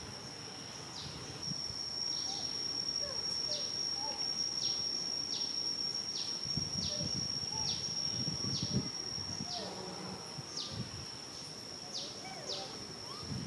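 Cicada droning on one high, steady note, with a short downward-dipping chirp about once a second.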